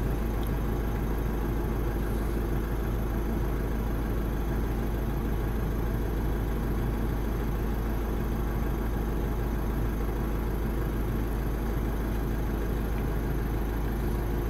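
A steady low drone from a running vehicle, unchanging in level.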